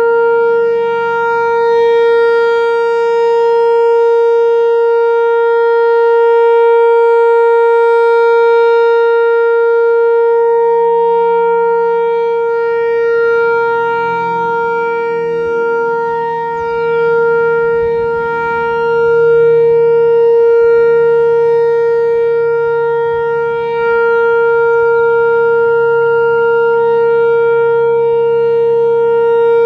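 Whelen Vortex-R4 electronic outdoor warning siren sounding its Alert signal: one steady, unwavering tone, loud, swelling and dipping slightly in level every few seconds.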